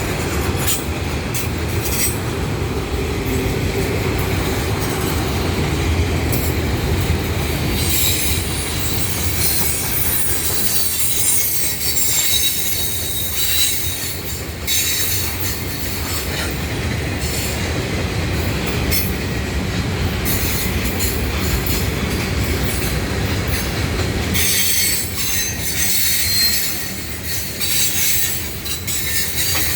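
A Norfolk Southern freight train's cars rolling past with a steady low rumble. In two stretches, high-pitched steel wheels squeal against the rails.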